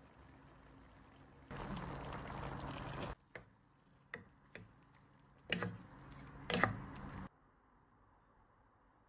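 A pan of meat and tomato stew simmering, with a louder wet rush of bubbling about a second and a half in. A wooden spatula then stirs chopped greens into the stew, making wet squelching and several sharp knocks against the pan.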